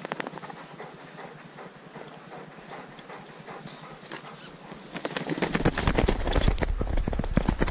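Footsteps crunching through snow and dry grass, a run of uneven crunches. About five seconds in they get heavier and louder, with a low rumble under them.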